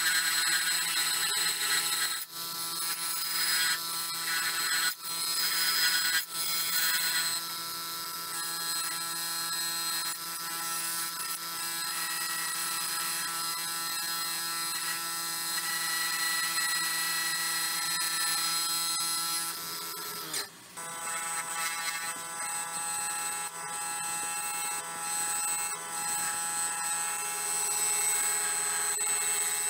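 Wood lathe spinning a silver maple burl and epoxy resin bowl blank while a bowl gouge cuts it: a steady whine of several tones over the hiss of the cut, breaking off briefly a few times as the tool lifts.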